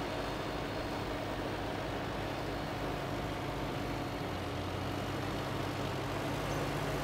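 Tractor engine running steadily at an even speed, a low drone with no change in pitch.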